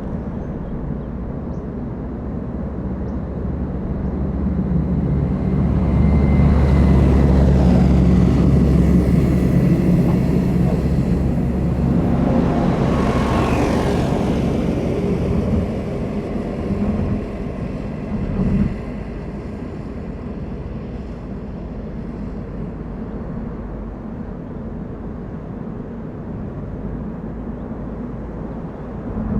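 Car driving noise of engine and tyres on the road, steady apart from a swell lasting several seconds in the middle, where it grows louder and deeper and then falls back.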